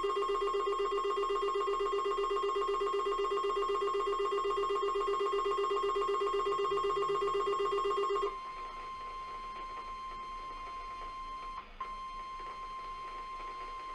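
Emergency Alert System attention tones. A loud, harsh steady tone chord sounds for about eight seconds, then switches to a single steady tone at lower volume, with a brief break about three seconds before the end. These tones announce the severe thunderstorm warning that follows.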